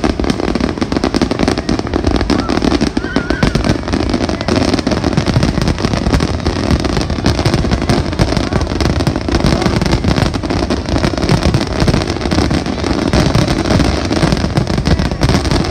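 Fireworks barrage: many aerial shells bursting in quick succession, a dense, unbroken run of bangs and crackling.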